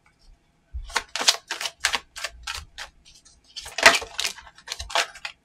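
Tarot cards being handled and shuffled: a run of crisp, irregular snaps and taps, about two a second, starting about a second in, with the loudest near the middle.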